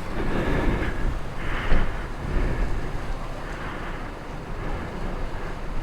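Wind buffeting the microphone: a steady low rumbling haze that swells and eases.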